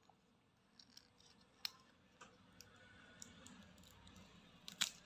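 Small sharp clicks and taps of plastic and a metal hair clip as the opened shell of a pTron earbud charging case is handled and pried apart; the loudest is a quick double click near the end, another comes under two seconds in.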